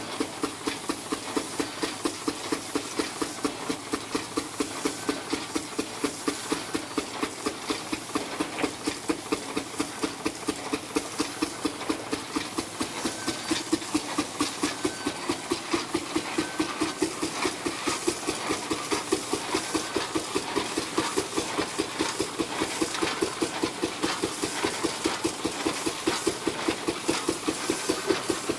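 Steam traction engine running under steam, its exhaust beating from the smokestack in a steady rhythm of roughly two to three beats a second, with mechanical clatter.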